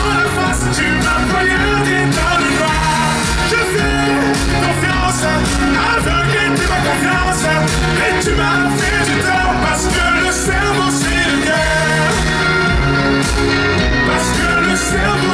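Loud pop music over a concert PA system, a male voice singing over a backing track with a steady beat; the performance is partly sung to playback.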